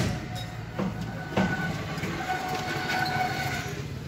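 Sharp knocks, three in the first second and a half, then a quieter stretch with a faint steady ringing tone in the middle.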